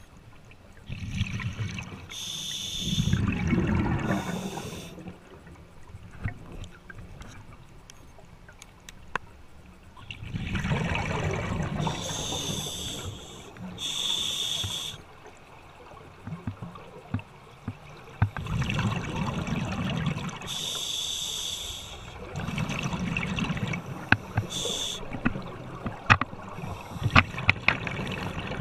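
Scuba diver breathing through a regulator underwater: several breaths, each a hissing inhale and a rumbling burst of exhaled bubbles, with scattered small clicks.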